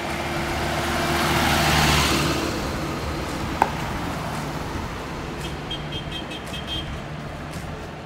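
Street traffic: a car drives past, swelling and fading about two seconds in, over a steady low rumble of road traffic. A single sharp click comes about halfway through.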